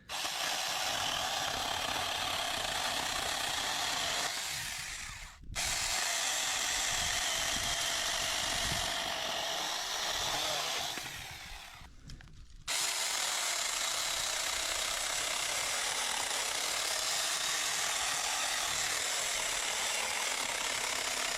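6-inch handheld battery chainsaw cutting through an oak limb, running in three long stretches. The motor winds down twice, about four seconds in and again about eleven seconds in, each time cutting out briefly before the saw starts up again.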